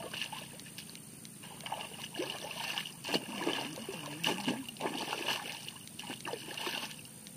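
A hoe chopping into and dragging wet mud in a flooded rice paddy, with repeated squelching, splashing strokes of mud and water.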